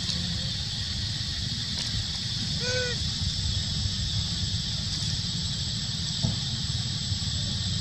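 A steady high-pitched insect drone over a low rumble, and about three seconds in a single short squeak that rises and falls, a call from one of the macaques.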